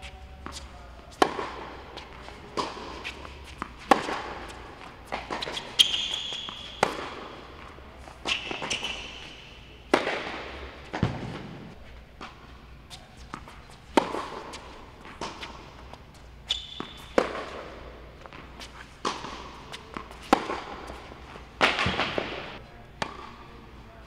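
Tennis ball being struck by racket strings and bouncing on an indoor hard court: sharp pops every second or so, each echoing in the hall.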